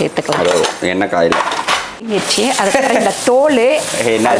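Steel plate and spoon clattering and scraping against a kadai as ridge gourd peels are tipped into the hot oil.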